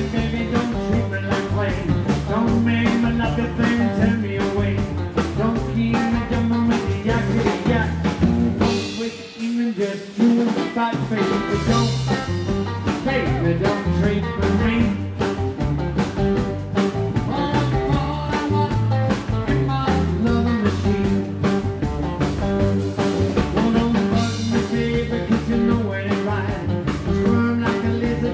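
Live rockabilly band playing with no vocals: electric guitar, acoustic rhythm guitar, upright bass and drum kit. About nine seconds in the bass and drums briefly drop out, then the full band comes back in.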